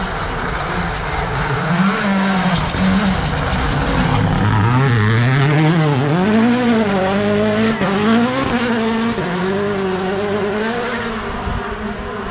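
A WRC Rally1 rally car's engine revving hard, its pitch climbing and dropping several times through gear changes, growing loudest about halfway through and then easing off.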